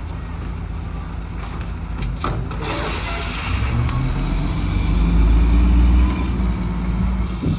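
Mack MR garbage truck's diesel engine idling, with a single knock about two seconds in. About halfway through the engine revs up and gets louder as the truck pulls away.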